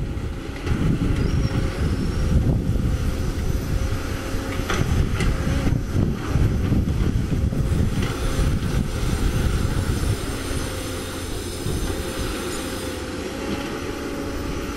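CAT 320D excavator's diesel engine running under digging load with a steady hydraulic whine, while the bucket scrapes and knocks against breccia rock. A few sharp knocks stand out in the first half, and the low rumble eases a little after about ten seconds.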